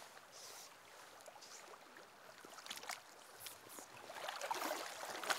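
Faint flowing river, with several soft swishes of a fly line through the air as the rod is false cast.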